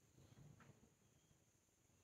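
Near silence: room tone, with a faint, brief soft rustle about half a second in.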